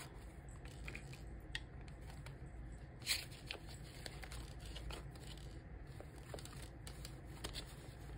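Paper banknotes rustling and flicking as a stack of cash is sorted by hand. Faint, with scattered short crisp rustles, the loudest about three seconds in.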